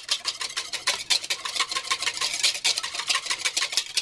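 Wire whisk beating egg yolks with mustard and vinegar in a bowl: rapid, even strokes with the wires clicking against the bowl. This is the yolk base of hand-whisked mayonnaise, before the oil goes in.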